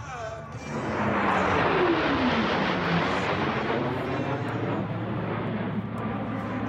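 Blue Angels F/A-18 Hornet jet flying past: jet noise swells in about a second in, its pitch drops sharply as it goes by, then a steady rush of jet noise slowly eases off.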